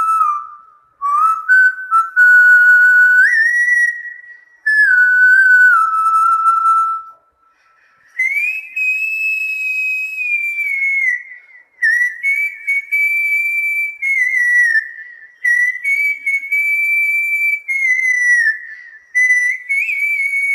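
A man whistling a tune by mouth in long held notes that step up and down in pitch, phrase after phrase with short breaks between them.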